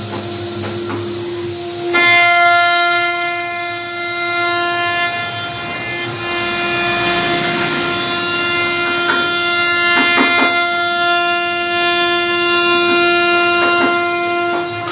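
CNC router spindle whining at a steady high pitch as it carves a wooden door panel. About two seconds in the whine becomes louder and richer, and a few short scraping strokes come through later.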